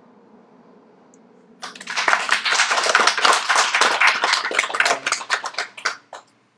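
Small audience clapping after a poem, a quick, dense run of claps starting about a second and a half in and thinning to a few last claps near the end.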